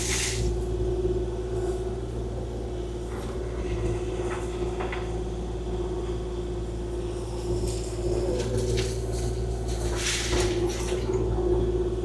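Kubota KX040-4 mini excavator's diesel engine running steadily, with a few short scraping or hissing noises over it near the start, about four seconds in and about ten seconds in.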